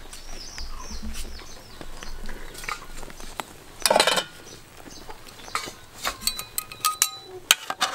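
Metal utensils clinking against an aluminium cooking pot: several sharp, ringing clinks in quick succession over the last two seconds, with a short, loud scrape about four seconds in.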